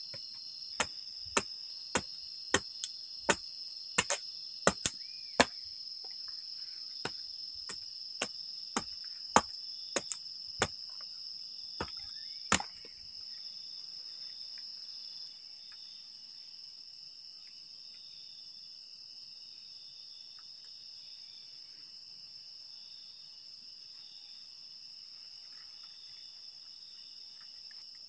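Machete chopping a stick of firewood: a run of sharp chops, one or two a second, that stop about halfway through. Crickets chirr steadily throughout.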